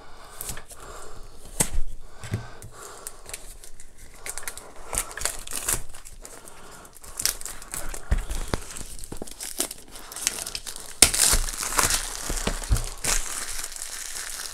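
Clear plastic wrap being torn off a cardboard product box and crumpled in the hand: crinkling and tearing with many small sharp crackles, busiest and loudest in the last few seconds.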